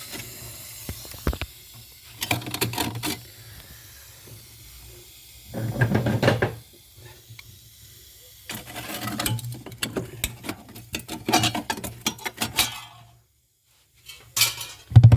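Irregular metallic clinking and rattling of tools against a fridge's copper pipework, with short hissing bursts as the freshly brazed joint is cooled with a wet cloth. A steady low hum runs underneath until near the end.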